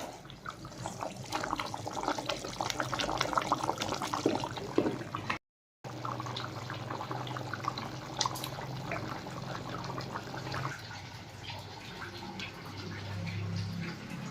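Water running and splashing, as from a tap into a sink, with a brief cut about five seconds in; afterwards the splashing is quieter over a low steady hum.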